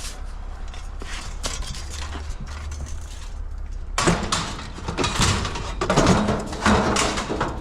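Scrap metal being handled, with a metal bar stool among it: a steady low hum at first, then from about four seconds in a run of knocks and clatters.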